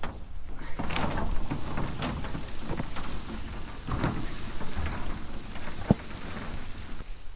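Light knocks and rattles of corrugated metal roof panels and wooden pen frames being handled and lifted, over a rustling noise, with a sharper click about six seconds in.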